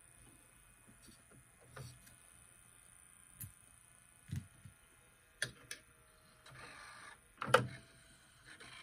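Scattered mechanical clicks and knocks from an Aiwa NSX-350M stereo's CD changer being worked on, with a short whirr about six and a half seconds in and the loudest knock about a second later. The changer's drive belt is slipping, in the repairer's view.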